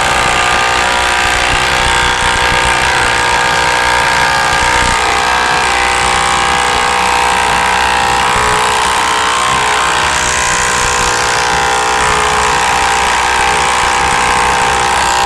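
Ryobi brushless cordless impact driver hammering steadily without let-up as it drives a long lag into stacked pressure-treated 4x4 and 4x6 timbers, working under heavy sustained load.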